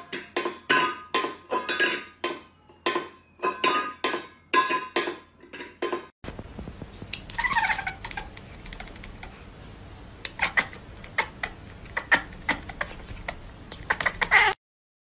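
A cat yowls once, a drawn-out call falling in pitch, about seven seconds in, followed by scattered sharp clicks. Before it comes a quick run of sharp taps with short ringing notes.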